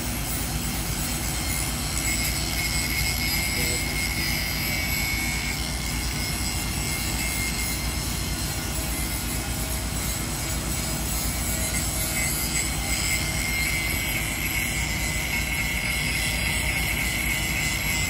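Crane's diesel engine running with a steady, unbroken drone.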